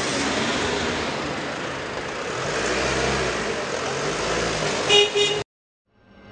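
Car engine and street noise as a car pulls away, with a short car horn toot about five seconds in; the sound then cuts off suddenly.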